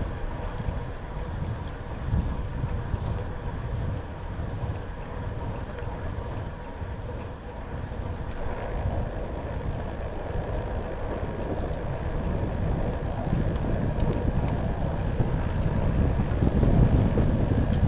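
Wind buffeting the microphone as it moves along, a steady low rumble that grows louder near the end.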